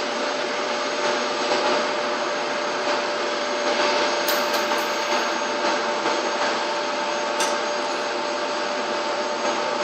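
Helicopter turbine engine running on the ground, warming up before lift-off: a steady whine over an even rushing noise.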